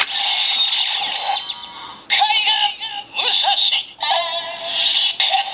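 DX Ghost Driver transformation-belt toy playing its electronic transformation sequence for the Musashi Ghost Eyecon: a synthesized voice chanting over electronic music through the toy's small speaker. A sharp click comes right at the start.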